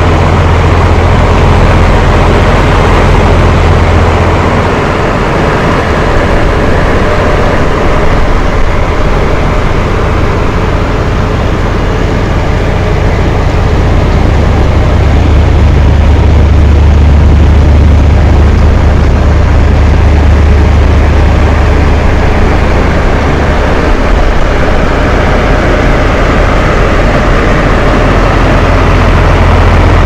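Two electric bathroom fan heaters running together with rain mixed in: a steady blowing hiss over a low hum. The hum slowly swells and eases again.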